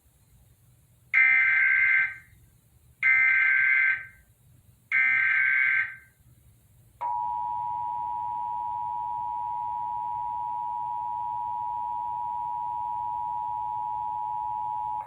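Emergency Alert System signal for a Required Monthly Test: three one-second bursts of warbling digital data tones (the SAME header), then a short pause and the steady two-tone attention signal of 853 and 960 Hz held for about eight seconds.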